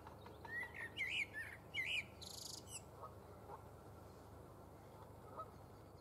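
Male common blackbird singing one song phrase: a few mellow warbled notes, then a short high, squeaky twitter at the end, lasting about two seconds.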